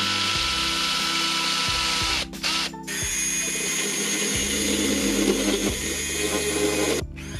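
Power drill boring holes into a coffee maker's plastic housing. It runs for about two seconds, stops briefly, then runs steadily again for about four seconds with a high whine.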